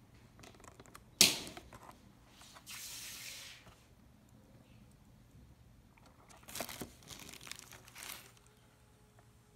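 Packaging being handled and torn open: a sharp snap about a second in, a steady tearing for about a second, then rustling and clicks.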